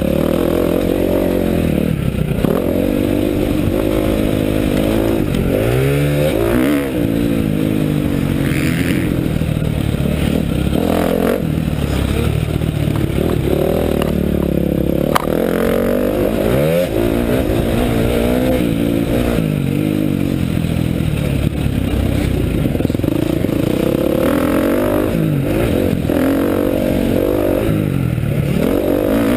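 KTM motocross bike's engine heard from on board, revving up and dropping back over and over as it is ridden hard along a dirt track, with a constant rush of wind on the microphone and a couple of sharp knocks from the bumps.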